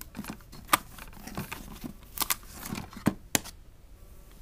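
Unboxing packaging being handled: plastic and cardboard rustling, broken by about six sharp clicks and knocks spread over a few seconds.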